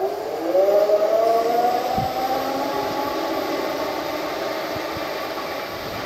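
Rockwheel electric unicycle's hub motor whining under a rider, its pitch rising over the first two or three seconds as the wheel speeds up, then holding fairly steady at speed. A light knock about two seconds in.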